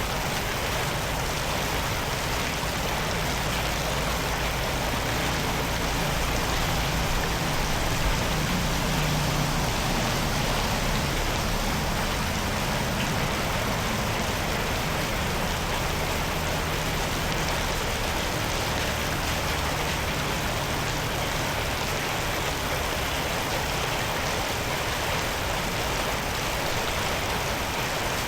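Steady rush of running water, with a low engine hum underneath through the middle stretch.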